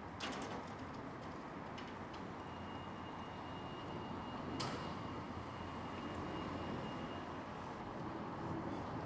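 Outdoor town ambience: a steady low rumble of distant traffic, with two sharp clicks or knocks, one right at the start and a louder one about halfway, and a faint thin high whine held for about five seconds in the middle.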